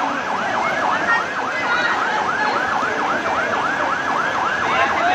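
Emergency vehicle siren in a fast yelp pattern, its pitch sweeping up and down about three to four times a second over a steady background hiss.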